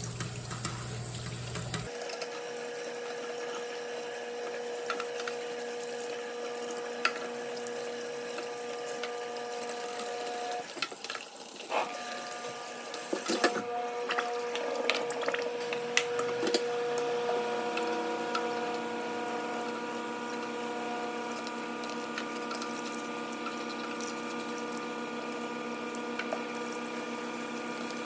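Tap water running steadily over a fabric PTAC air-conditioner filter as it is rinsed free of dust, with a few knocks and splashes around the middle.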